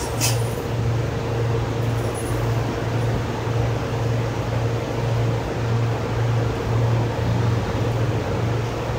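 Steady low hum of barn machinery, swelling and fading a little more than once a second, with one brief sharp click just after the start.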